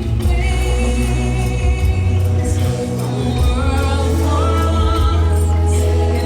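Show soundtrack music with singing and a choir over a heavy, steady bass.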